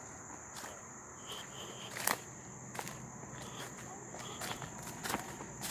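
A steady high-pitched chorus of insects, with irregular footsteps crunching on leaf litter and twigs. The sharpest crunch comes about two seconds in, and there are a few short high chirps.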